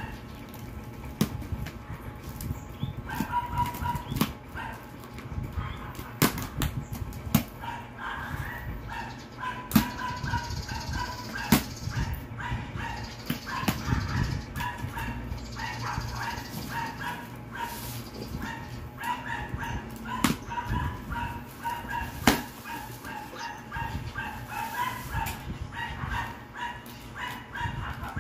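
Cardboard carton being opened by hand: packing tape pulled off and flaps handled, with sharp clicks and scrapes. A dog barks and yips over and over.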